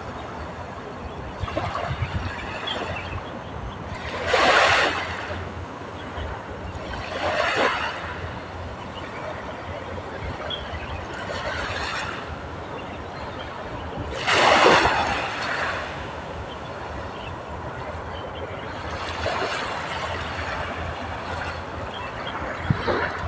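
Small waves washing onto the shore, one swell every few seconds, the strongest about four and a half and fifteen seconds in, over a steady low rumble.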